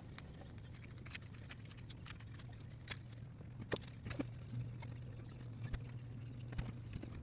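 Scattered light clicks and taps of small laser-cut plywood model parts being handled and pressed out of their sheet on a wooden table, a few sharper ones near the middle, over a steady low hum.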